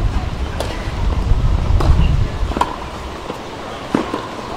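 Tennis ball being struck during a rally: four sharp knocks about a second apart over a low steady rumble.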